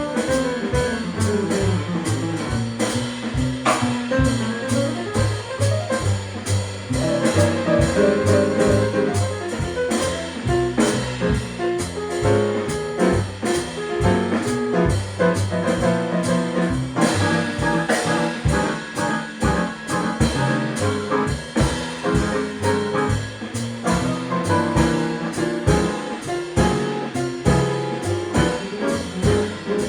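Small jazz group playing, with saxophone carrying the line over a low bass line and a steady drum beat.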